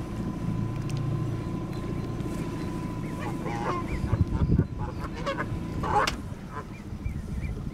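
Canada geese honking: a few short honks about three and a half seconds in and another about six seconds in, over the steady low hum of the boat's engine.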